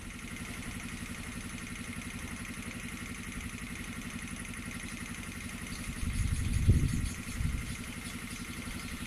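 A small engine running steadily with a fine even pulse. A louder low rumble swells and fades about six seconds in.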